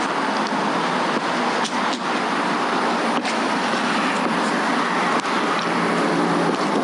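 Steady road-traffic noise, an even rush of cars with a few faint clicks.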